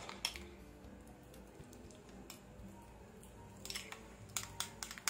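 Metal spoon stirring a thick cornmeal mixture in a ceramic bowl, with scattered light clinks and scrapes of spoon on bowl that come thicker near the end.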